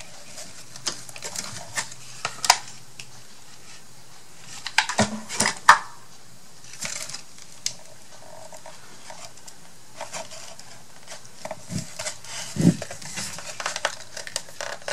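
Scattered light taps, clicks and rustles of small craft pieces and tools being handled and set down on a work table, with a few sharper clicks about two and a half and five to six seconds in and a dull knock near the end.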